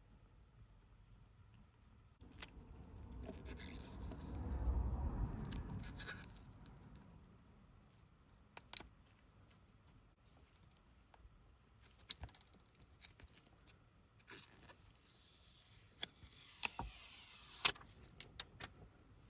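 Small tools and phone parts being handled during a phone screen repair: scattered sharp clicks and taps with scraping, plus a rushing noise that swells and fades over several seconds a couple of seconds in.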